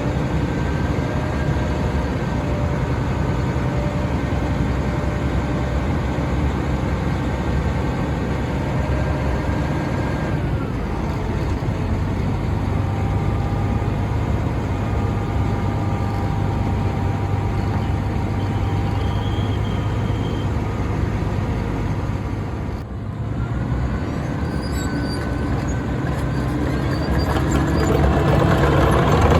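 Diesel engine of a Wirtgen 200i tracked cold planer running steadily, with several steady whining tones over the engine note. The pitch shifts about a third of the way in, the sound dips briefly about three quarters through, and it grows louder near the end.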